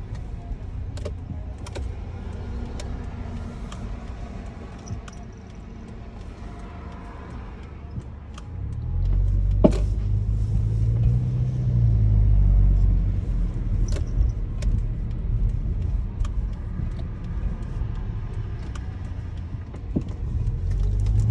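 A 2012 Subaru Legacy (BM9) on the move: steady low road rumble that gets louder about nine seconds in, with scattered sharp knocks, the strongest about ten seconds in. The knocks are the right front suspension noise, which the owner traced to a ball joint.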